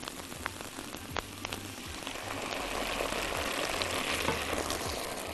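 Onions, garlic and tomato paste sizzling in oil in a frying pan as they are stirred with a silicone spatula, with a few light taps of the spatula on the pan. The sizzle grows a little louder in the middle.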